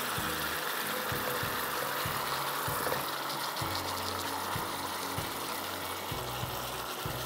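Whole marinated chicken sizzling in hot oil in a wok as it is turned with metal spoons, a steady frying hiss with a few light spoon scrapes near the middle.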